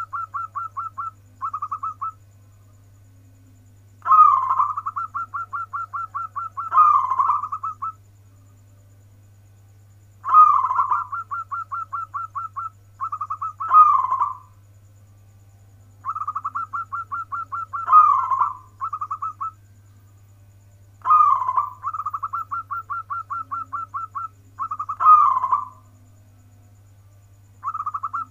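Local zebra dove (perkutut) singing in the 'warung kebek' style. There are about four full phrases, one every five or six seconds, each mixing a quick run of short clipped notes with a couple of louder drawn-out coos.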